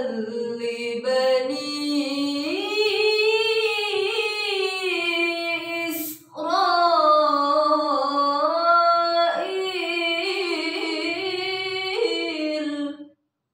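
A young woman's voice reciting the Quran in melodic tilawah style, with long held notes that glide up and down. There is a sharp breath about six seconds in, and the phrase ends just before the close.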